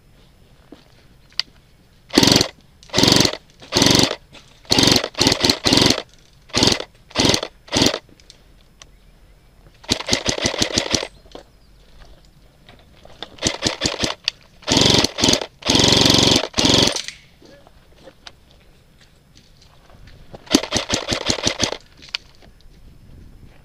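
Airsoft electric rifle (G&G F2000 AEG) firing on full auto, about a dozen rapid bursts. Most bursts are short, a few run over a second, with pauses between them.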